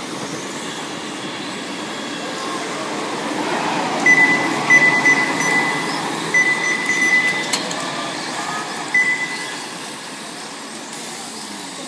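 Electric 1/10-scale RC Formula 1 race cars running around the track, a steady whir of motors and tyres. In the middle, a run of loud, high electronic beeps in short strings sits over it.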